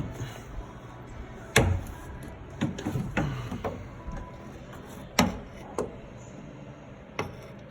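Scattered sharp metal knocks and clunks, about seven over several seconds, from tools and parts being handled against the truck's frame and fuel tank strap.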